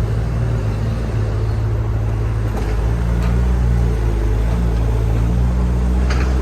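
Backhoe loader's diesel engine running with a steady low hum, its pitch shifting slightly a couple of times, with a few faint clicks.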